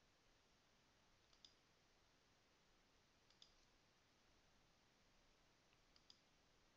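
Near silence with faint computer mouse clicks, three times about two seconds apart, as presets are selected one after another.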